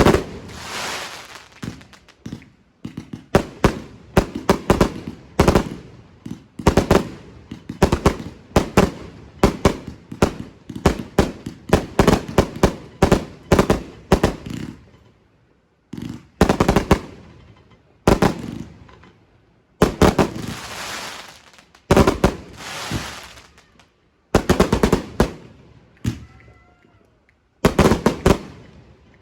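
Fireworks going off: rapid runs of sharp bangs, many followed by crackling, coming in clusters separated by a few short pauses.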